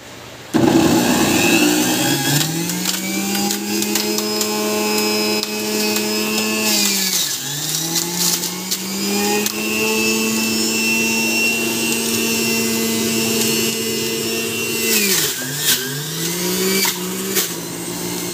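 Centrifugal juice extractor motor switched on, spinning up to a steady high whine. Its pitch sags and recovers about a third of the way in and twice near the end, as the motor takes the load of apple and carrot pieces going into the spinning blade basket.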